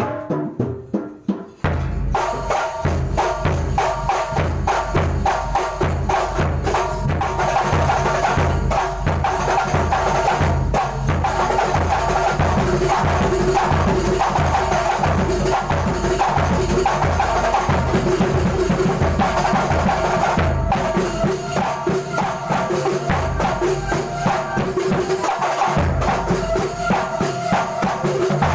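Kuntulan percussion ensemble rehearsing: hand drums and jingling percussion play a fast, steady rhythm. A few separate strokes lead in, and the full ensemble comes in about two seconds in.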